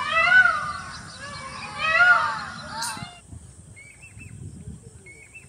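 Jacobin cuckoo calling: loud, ringing whistled notes that rise and fall, a few in the first three seconds. They stop abruptly about three seconds in, leaving only faint high chirps.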